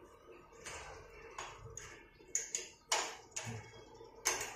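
Sharp clicks and taps of small metal parts, about six spread over a few seconds, as the brake pads and retaining pin are fitted back into a Suzuki Raider 150's rear brake caliper by hand.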